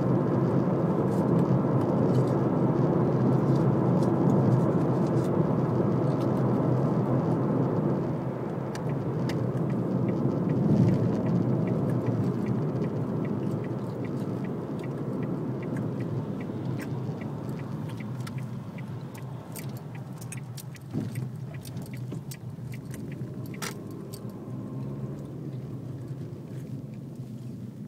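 Road and tyre noise of a moving car heard from inside the cabin, loudest over the first several seconds and fading gradually as the car slows, with scattered light clicks and rattles.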